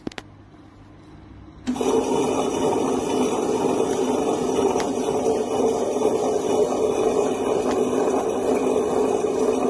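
Lakshmi table-top wet grinder running empty: the drum turns and its stone rollers grind over the stone base, a loud, steady, rough grinding noise that starts suddenly about two seconds in, after a faint hum.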